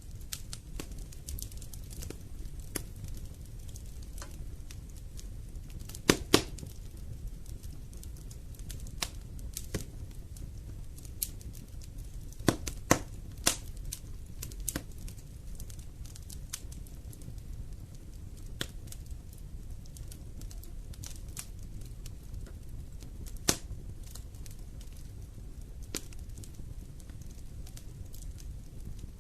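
Wood fire crackling in a fireplace: irregular sharp pops and snaps over a low, steady rumble of the flames, the loudest pops a pair about six seconds in and a few more around thirteen seconds.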